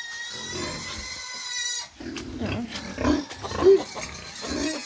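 Pigs in a pen: a high, wavering squeal held for about two seconds, then a run of short grunts, the loudest near the end.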